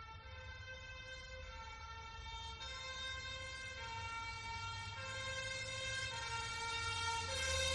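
Fire engine's two-tone siren alternating between a high and a low note about once a second, over a low engine rumble, growing steadily louder as it approaches.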